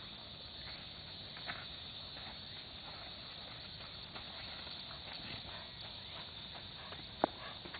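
A racehorse's hooves on a dirt path at a walk, a faint uneven clopping as it is led by hand, with one sharp click near the end.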